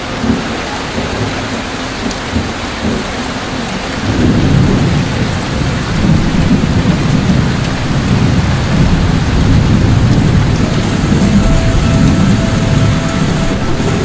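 Heavy tropical rain pouring down on a road, with a low rumble of thunder setting in about four seconds in and going on beneath the downpour.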